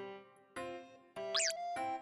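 Light background music with chords struck about every 0.6 s, and a brief high gliding sound effect about one and a half seconds in.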